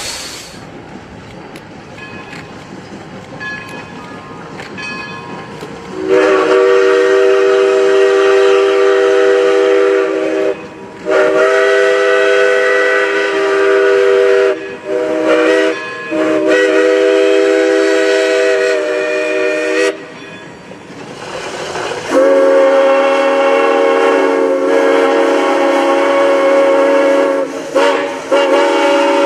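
A locomotive's horn sounding a chord of several notes in long blasts: three in a row after a few seconds of the train's running noise, then a fourth held on to the end.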